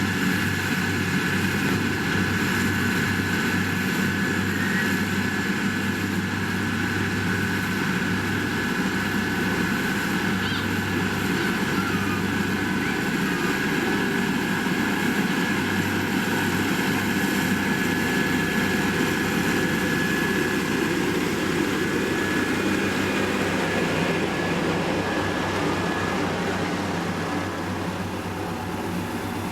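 Heavy diesel road-construction machinery, such as a motor grader or road roller, running steadily with a low engine hum and a constant whine.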